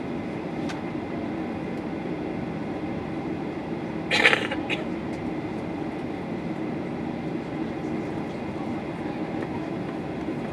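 Steady cabin rumble inside a Boeing 737-800 on the ground before takeoff, its CFM56 engines at idle. A brief, loud noise cuts in about four seconds in.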